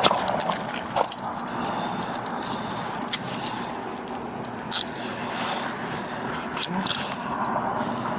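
Metal handcuffs clicking and jangling as they are fastened onto wrists held behind the back: many short, sharp clicks, over clothing rustling close to the body camera.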